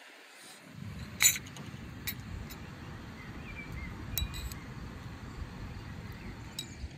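A metal spoon clinking against cut-glass bowls while strawberry jam is spooned out: one sharp clink about a second in, then a few lighter taps.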